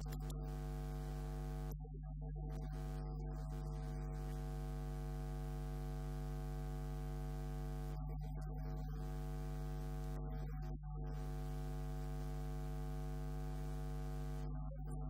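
Steady electrical mains hum: a low buzz with many evenly spaced overtones, unchanging in pitch, dipping briefly twice.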